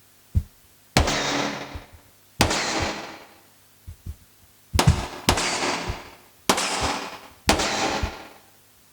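Gunshot sound effect (General MIDI program 127) from a MIDIPLUS MiniEngine sound module, played from a keyboard: six sharp synthesized shots at uneven spacing, each with a hissing tail that fades over about a second. There are faint clicks between the shots.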